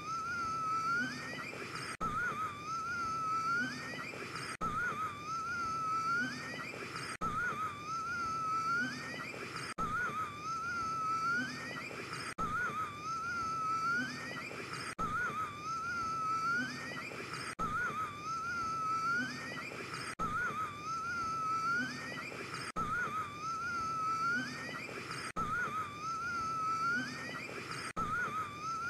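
A man gasping for air with a high, wavering wheeze. A short breath of about two and a half seconds is looped over and over, with a brief break at each join, and each repeat ends in a rising wheeze.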